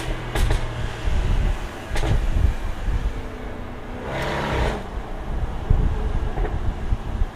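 Jaguar F-Type R's supercharged 5.0-litre V8 running with a low exhaust rumble, broken by sharp exhaust crackles and pops: single cracks now and then, and a quick burst of them about four seconds in.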